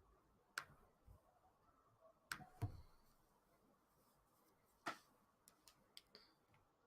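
Faint, irregular clicks of a computer mouse, about eight in all, the loudest two close together about two and a half seconds in, over near-silent room tone.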